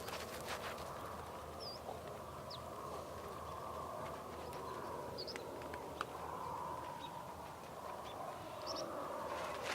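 Farm ambience: sheep bleating, their calls overlapping into a continuous din, with a few short high bird chirps scattered through and a faint knock about six seconds in.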